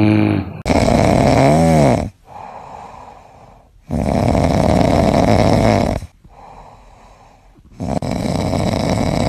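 A sleeping dog snoring: three loud snores about two seconds long, evenly spaced, with quieter breaths between them. A short wavering whistle sounds within the first snore.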